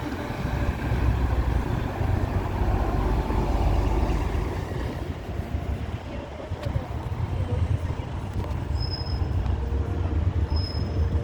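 City street traffic: a steady low rumble of passing vehicles, with buses and trucks among them. A few short, high beeps come near the end.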